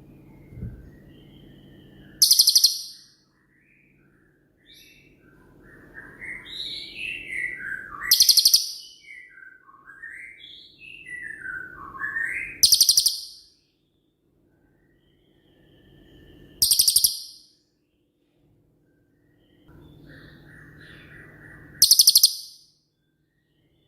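Cililin songbird singing its 'shot' song. Five sharp, very high-pitched bursts of rapid notes, each about half a second long, come every four to five seconds, and slower gliding whistles rise and fall between them.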